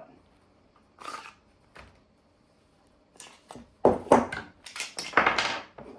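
Handling noises from a PSA Dagger pistol fitted with a Holosun red dot: a brief scrape about a second in, then a run of sharp clicks and knocks from about four seconds in, with a short rasping slide near the end.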